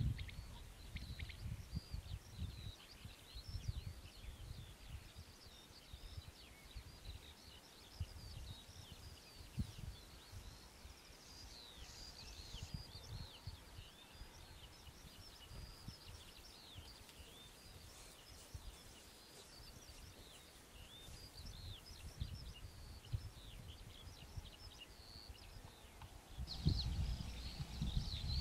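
Many small birds singing and chirping continuously in open countryside. Wind buffets the microphone in gusts as a low rumble, which grows louder near the end.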